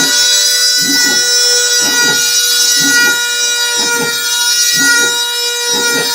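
CNC milling machine running, its spindle giving a steady high whine with several tones, while a lower rushing burst of cutting noise comes back about once a second.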